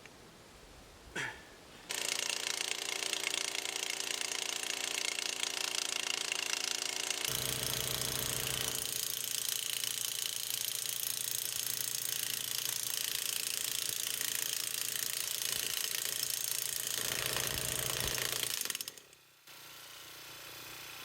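Gas-powered T-post driver running and hammering on the steel well pipe, a steady machine racket that starts about two seconds in, grows heavier at about seven seconds, and cuts off shortly before the end.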